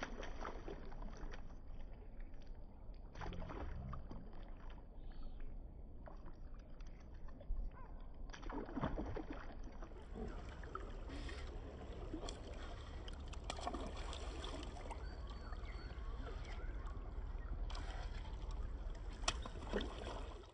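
Steady rush of river water, with sloshing and a few brief, sharper splashes.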